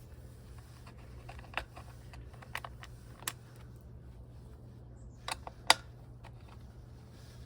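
Scattered sharp metal clicks and taps of a 4mm Allen key being fitted into and turning bolts to loosen them, about half a dozen, the loudest pair near the end. A steady low hum runs underneath.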